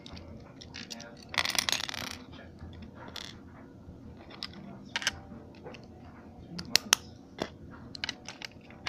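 Hard plastic Lego pieces clicking and clattering as they are handled and pulled apart, with a short scraping rustle about a second and a half in and a quick run of sharp clicks near the end.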